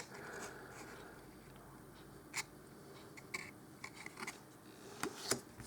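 Faint handling of trading cards being shuffled through by hand: a few light clicks and snaps in small groups, from about two seconds in.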